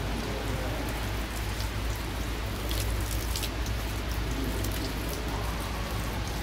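A thin stream of hot thermal spring water pouring from a spout into a stone basin: a steady splashing hiss, with a few sharper splashes around the middle as a hand is put under the stream.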